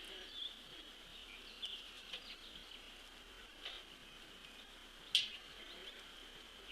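Outdoor ambience at a backyard feeder: a steady high-pitched insect drone, with scattered short bird chirps and a few sharp ticks, the loudest about five seconds in.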